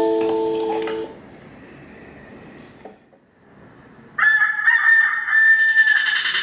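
A chime melody on bell-like mallet tones dies away about a second in. About four seconds in a rooster crows once, a loud wavering call lasting about two seconds.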